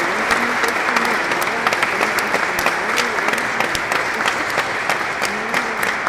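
A crowd applauding steadily inside a church, many hands clapping at once in a dense, even patter.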